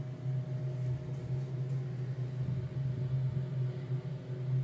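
A steady low hum at one constant pitch, with no other sound standing out.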